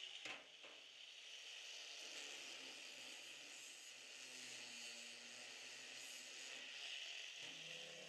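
Faint, steady hiss of an angle grinder cutting 14-gauge sheet steel into plates, with a sharp click about a quarter second in.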